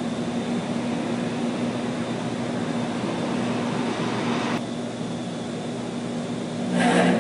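Refrigerated container refrigeration units running, a steady mechanical drone with a constant low hum. It drops slightly about four and a half seconds in and swells louder for a moment near the end.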